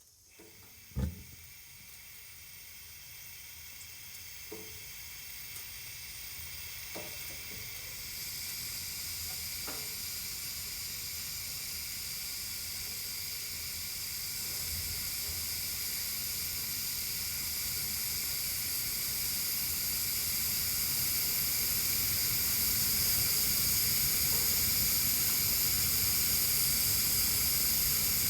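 Pressurized gas escaping in a steady hiss that grows louder and brighter over the span, especially after about eight seconds. A sharp thump about a second in and a few faint knocks over the next nine seconds sit under the hiss.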